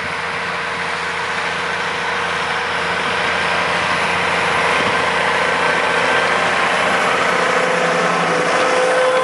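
New Holland tractor's diesel engine with an open exhaust pipe, running steadily under load while pulling a seed drill, growing louder as the tractor comes up and passes close by.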